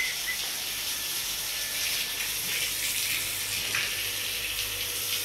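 Water from a hose spraying onto a concrete shed floor: a steady hiss and splash, with a faint steady hum underneath.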